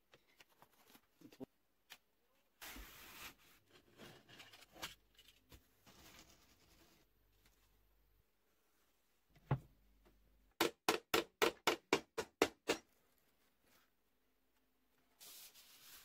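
Hand work with tape and foam sheet: adhesive tape rasps as it is pulled off the roll about three seconds in and again near the end, and after a single knock comes a quick, even run of about a dozen sharp clicks.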